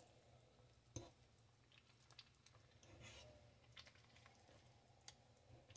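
Faint clicks and soft scraping of a metal fork and spoon stirring and breaking up meat in a slow cooker's ceramic crock, over a low steady hum. The clearest clicks come about a second in and again near five seconds.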